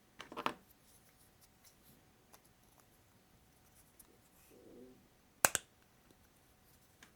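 Small plastic building bricks being handled and pressed together: a few sharp clicks, the loudest about five and a half seconds in, with a brief soft rustle just before it.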